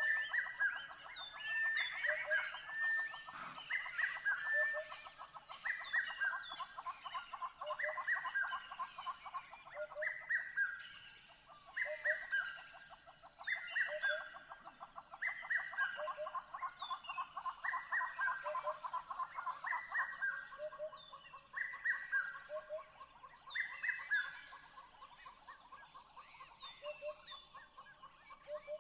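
Chirping, bird-like animal calls: a short call that drops in two steps repeats about every two seconds over a fast rattling chatter.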